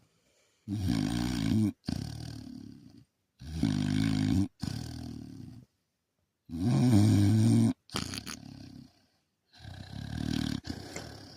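Dog snoring in its sleep: about four slow breaths, each a loud snore about a second long followed by a quieter, fading breath.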